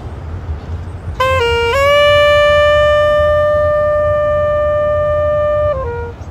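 Low clarinet playing: about a second in, a short note dips slightly, then slides up into one long held note of about four seconds, which drops to a brief lower note before stopping. A steady low rumble runs underneath.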